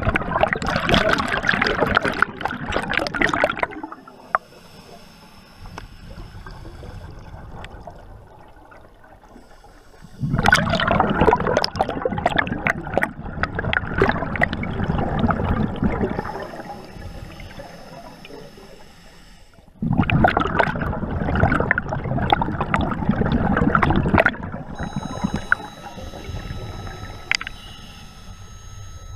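Scuba diver breathing through a regulator underwater: three loud rushes of exhaled bubbles about ten seconds apart, with quieter inhaling between them.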